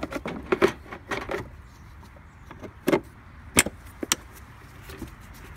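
Scattered sharp plastic clicks and knocks as a gloved hand handles the plastic underhood fuse and relay box cover, the sharpest about three and a half seconds in, over a steady faint hiss.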